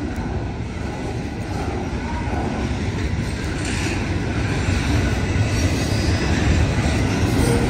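Union Pacific double-stack intermodal freight train's well cars rolling past, a steady rumble of steel wheels on rail that grows slightly louder toward the end.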